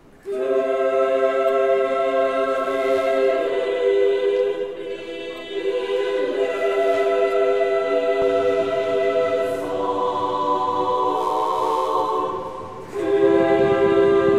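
Background music: a choir singing slow, long-held chords that shift every few seconds.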